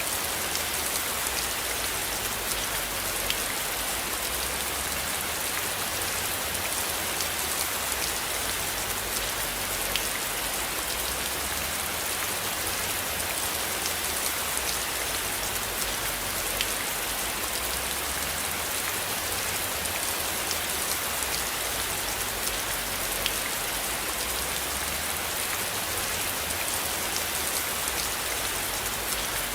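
Steady rain falling: an even hiss with individual drops ticking through it.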